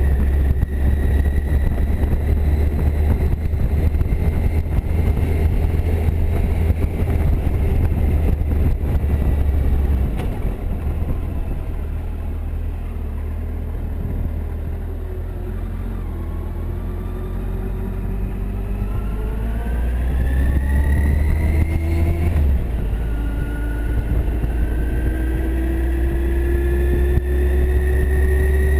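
Kawasaki Concours motorcycle's inline-four being ridden, its engine note climbing as it accelerates, dropping at an upshift near the 22-second mark, then climbing again, over a heavy wind rumble on the microphone.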